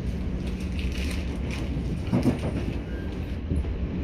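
Interior running noise of a Networker electric multiple unit at speed: a steady low rumble of wheels on track, with a brief louder bump about two seconds in.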